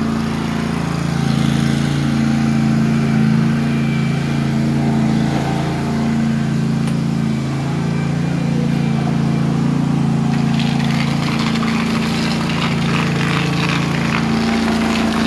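Propane-powered ride-on floor scraper's engine running steadily with an even hum. About ten seconds in, a rough scraping rattle joins it.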